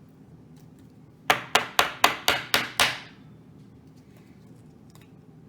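Seven quick, sharp knocks in a row, about four a second, each dying away quickly.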